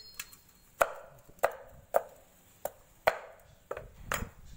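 A large kitchen knife chopping fresh turmeric root on a thick wooden chopping board: about seven sharp strikes at an uneven pace, roughly one every half second.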